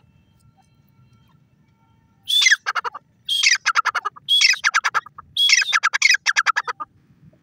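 Grey francolin calling: four loud phrases about a second apart starting about two seconds in, each a high falling note followed by a fast run of repeated notes.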